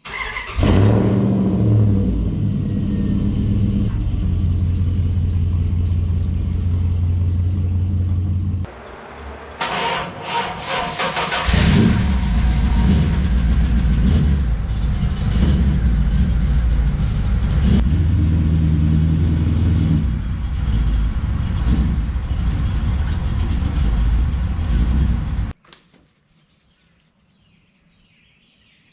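A car engine running steadily. About nine seconds in it drops away, and after a few seconds of rough, noisy sound it runs again. It cuts off abruptly a few seconds before the end, leaving near silence.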